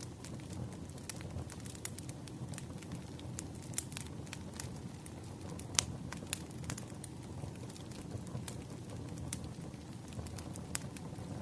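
Firewood burning: irregular crackles and sharp pops over a steady low rumble of the fire, the loudest pop about halfway through.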